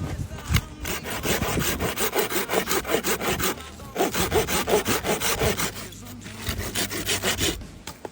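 Hand saw cutting through a piece of wood that is suspected to be Hainan huanghuali, in quick back-and-forth strokes. The sawing comes in three bouts with short pauses between them.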